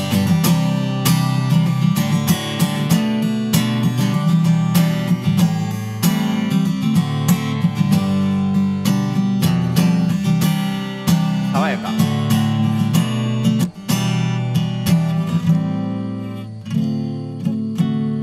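Acoustic guitar strummed in a steady rhythm, the instrumental outro that closes a sung cover song. The playing thins out about two seconds before the end.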